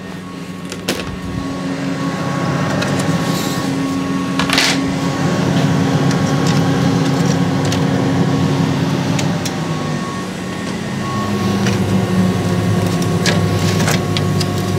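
Steady mechanical hum of a laser cutter's running equipment, shifting slightly in pitch partway through. Over it come a few sharp clicks as cut wooden pieces are lifted off the metal honeycomb bed, clearest about a second in and again around four and a half seconds.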